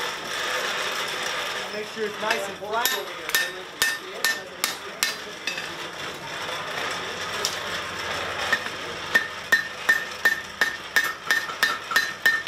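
Blacksmith's hammer striking a red-hot horseshoe on an anvil: scattered blows at first, then a steady run of about three blows a second, each with a bright ring. Before the hammering there is a steady rush from the coal forge fire.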